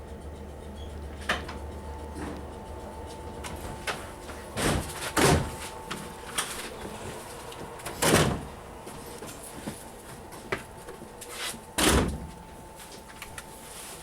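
Carriage doors of a 2EPB electric train slamming shut, four loud bangs a few seconds apart, over a steady electrical hum; a deeper hum cuts out about two seconds in.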